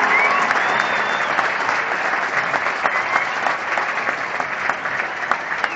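Large stadium crowd applauding, thousands of hands clapping, with a few whistles early on. The applause thins a little toward the end, leaving more separate claps.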